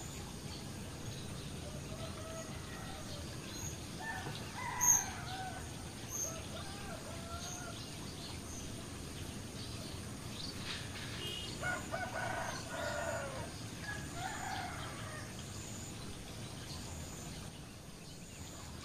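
Steady splashing of a koi pond's fountain and waterfall, with bird calls in the background in two spells. There is a short sharp sound about five seconds in.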